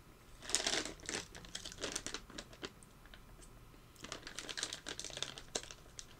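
Plastic snack bag of walnuts being handled, crinkling in rapid crackles. The crackling comes in two spells, the second starting about four seconds in.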